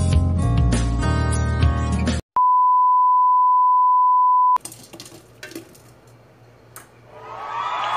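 Intro music ends about two seconds in, followed by a steady single-pitch test-pattern beep lasting about two seconds. After the beep come a few faint clicks.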